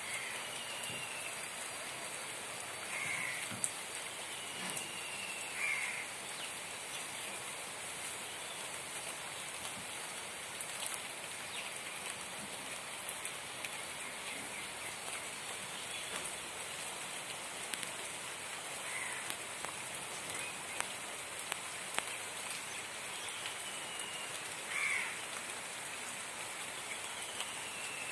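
Steady rain falling on leaves and soil, a continuous hiss with scattered drips. A bird gives short falling calls several times.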